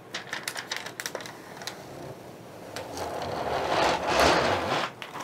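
Protective plastic film being peeled off a glass 3D-printer bed. A few sharp crackles come first, then a denser crackling hiss builds about three seconds in as the film comes away.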